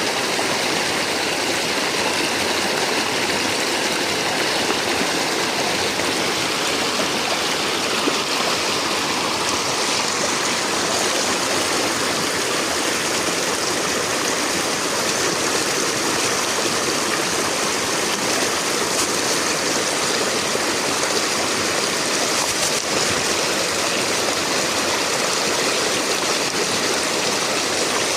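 Fast-flowing river water rushing steadily, a constant churning roar with no let-up.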